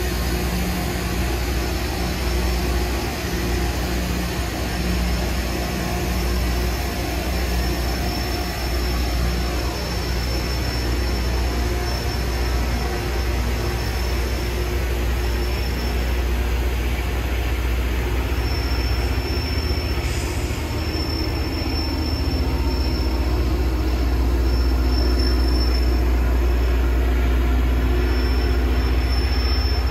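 Loram rail grinding train at work: a steady low rumble under a broad hiss of grinding stones on the rail heads, getting louder over the last third as it draws nearer.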